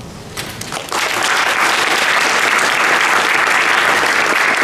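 Audience applauding: a few scattered claps at first, building within about a second into steady applause.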